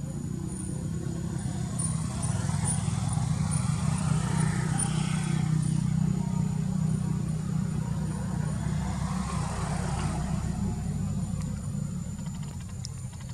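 A motor vehicle engine running steadily as a low hum, growing louder about two seconds in and easing off near the end.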